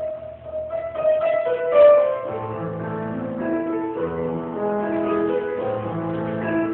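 Background instrumental music: a slow piano melody over held notes.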